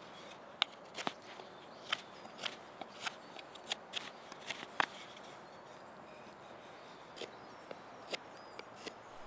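Knife shaving a wooden bow-drill spindle: short, sharp scraping cuts, about two a second for the first five seconds, then a pause and a few scattered cuts near the end.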